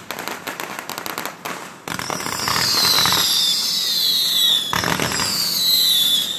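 Fireworks going off: rapid crackling for about the first two seconds, then two loud bursts of several high whistles falling in pitch, the first about two seconds in and the second about five seconds in.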